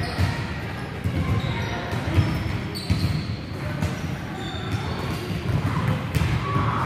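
Repeated thuds of soccer balls being kicked and bouncing on a wooden gym floor, echoing in a large hall.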